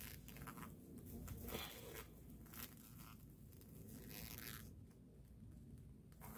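Clear plastic window of a pop-up insect enclosure crinkling and rustling in short bursts as a hand moves inside it.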